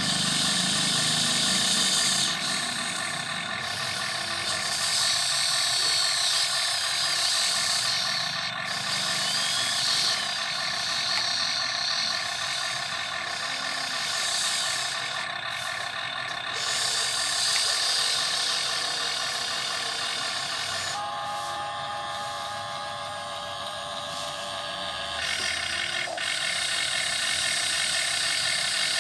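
Electric motors and plastic gearboxes of a radio-controlled model excavator whining steadily as it works. The whine changes in pitch and character about three-quarters of the way in, then changes again a few seconds later as different movements are driven.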